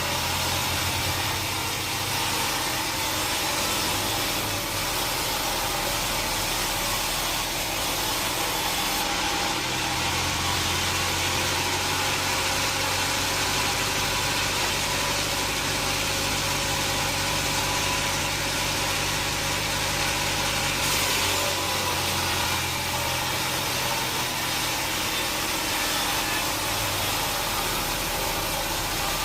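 Sawmill machinery running steadily: a low engine hum under a hiss, with a slight shift in the sound about nine seconds in and again near twenty-one seconds.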